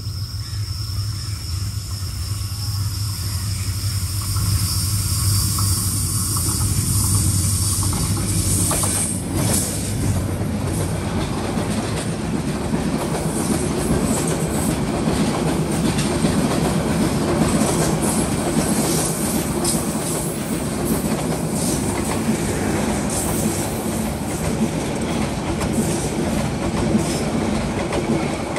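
Bangladesh Railway intercity passenger train passing close by. For the first several seconds the low drone of its diesel locomotive grows louder as it approaches. From about nine seconds in, the PT-INKA coaches go by in a steady rumble of wheels, with rapid clicking over the rail joints.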